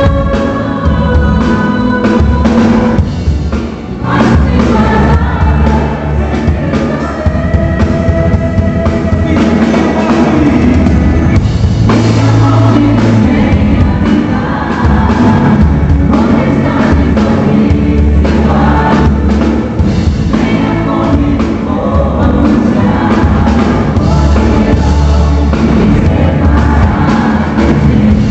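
Worship song performed live: a group of voices singing together over a band with drums and bass.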